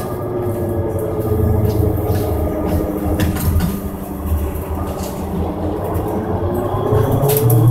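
Interior of an Ikarus 412 trolleybus in motion: the electric traction drive whines over a low rumble of road and body noise. The whine sinks slightly in pitch, then climbs again near the end as the bus picks up speed, with a few light rattles.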